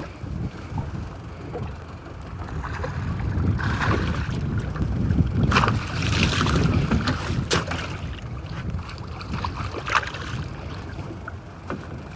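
Wind buffeting the microphone over water around a small fishing boat, with several brief sharp sounds in the middle of the stretch while a hooked mackerel is brought alongside to be gaffed.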